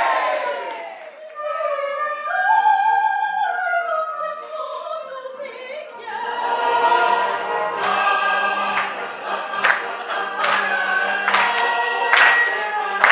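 Opera singing, with long held notes. From about eight seconds in, sharp beats about once a second join in.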